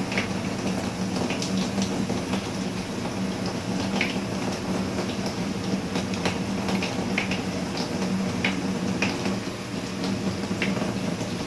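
Utility knife cutting through a dead stingray's tough, leathery skin and flesh on a plastic cutting board: irregular small clicks and scrapes over a steady low hum.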